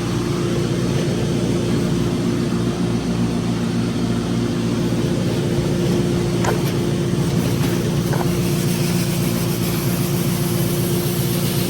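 Duct-cleaning vacuum machine running steadily: a loud, even drone with a steady low hum.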